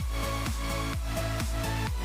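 Background electronic dance music with a steady, fast thumping beat.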